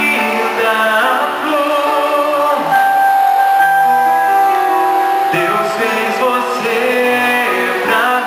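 Live band playing a song with singing over guitar; a singer holds one long note about halfway through.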